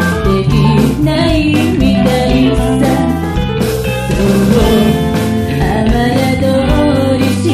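Pop-rock band music with guitar, bass, drums and keyboards playing at full level with a steady beat.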